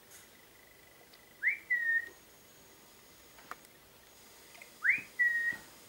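A person whistling twice, about three and a half seconds apart: each whistle swoops up and then holds briefly on one note. A single faint click falls between them.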